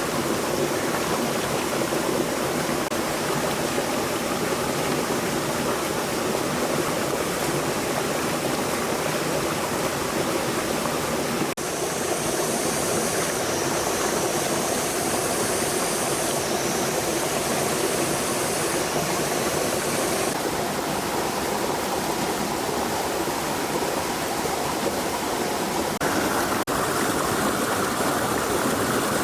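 Stream water flowing steadily, a continuous rushing wash that changes abruptly in character twice, about twelve and about twenty-seven seconds in.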